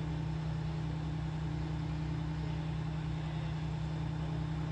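Engine idling steadily: a constant low hum over an even, pulsing rumble.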